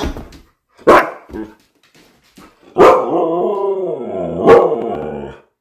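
Siberian husky vocalizing: two short barks in the first second, then from about three seconds in a long, drawn-out call that bends down and back up in pitch, broken near its end by a sharp bark. It is the husky's argumentative 'talking back', demanding a walk.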